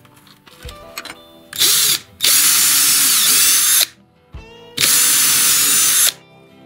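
Cordless drill running in a wooden board: a short burst, then two longer runs of about a second and a half each.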